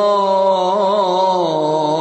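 A male Quran reciter's voice holding one long vowel in melodic tajweed recitation, with a brief wavering ornament about a second in.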